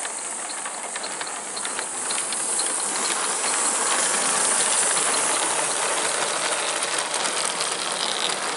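Gauge 1 live-steam locomotive running past with its wagons: steam hissing under a rapid mechanical clicking, loudest as it passes about four seconds in.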